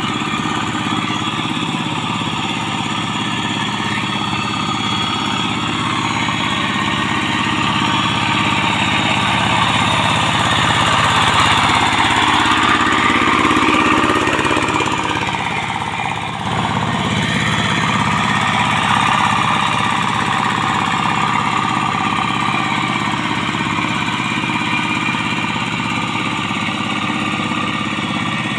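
Yanmar TF single-cylinder diesel engine on a two-wheel hand tractor running steadily under load as its cage wheels churn through a flooded paddy. It grows louder toward the middle, with a brief dip a little past halfway.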